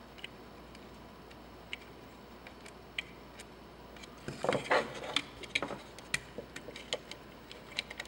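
Small clicks and taps of fingers handling the plastic end cap of an e-bike lithium battery while a small nut is threaded onto the charging jack. The clicks are sparse and faint at first, then come more often and louder from about halfway.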